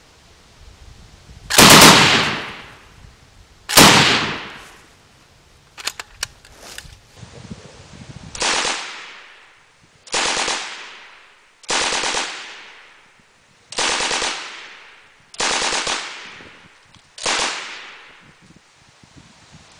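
Bren gun and Browning Automatic Rifle firing at a range target. Two loud reports about two seconds apart, a few light clicks, then six more reports at steady intervals of just under two seconds, each with a long echo.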